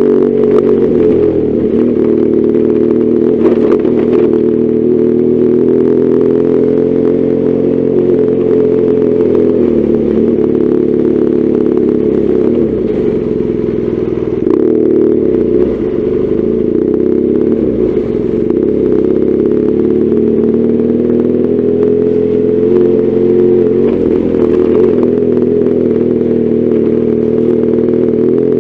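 BMW R1200GS Adventure's boxer-twin engine running under way, its pitch rising and falling with throttle and gear changes, with many faint knocks and rattles throughout.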